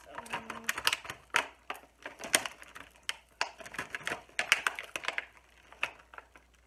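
Clear plastic packaging crinkling and crackling in quick irregular clicks as it is handled and pulled at where it is taped together.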